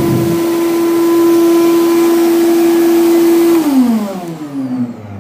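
Gas forge ribbon burner running on about 2 PSI, a steady roar with the steady hum of its air blower. About three and a half seconds in the forge is shut down: the blower winds down, its pitch falling, and the roar fades.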